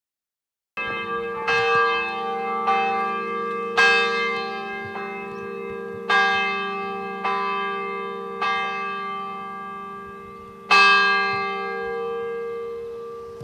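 Church bell struck repeatedly, strokes roughly a second apart, each stroke's hum ringing on beneath the next. After a short pause, a louder stroke comes near the end.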